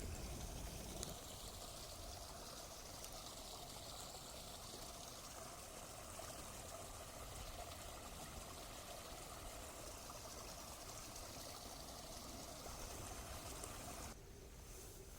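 Water flowing steadily, like a stream or river current running over a weir or drain, with a constant rushing hiss that stops abruptly near the end.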